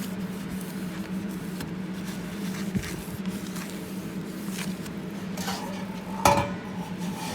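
Steady hum of a laser welding machine running, with a few light clicks and one sharp pop with a brief ring about six seconds in.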